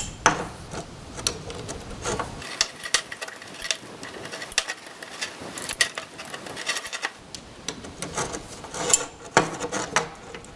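Torque wrench ratcheting in short runs of clicks as the bolts of a hydraulic hose repair clamp are tightened to 35 foot-pounds, with a few sharper clicks near the end.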